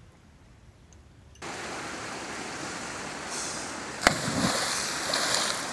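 Steady rush of river water that starts abruptly about a second and a half in, with a sharp splash about four seconds in as a person jumps into the water.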